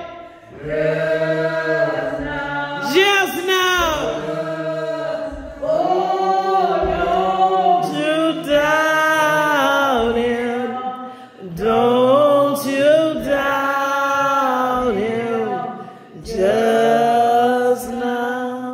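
Singing of a slow church hymn, long held notes in phrases of a few seconds with short breaks between them.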